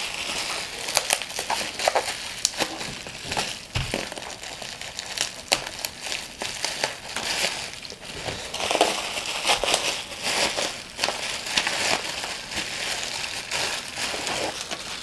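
Bubble wrap and a plastic bag crinkling and crackling as hands unwrap a packed part, with many sharp crackles throughout.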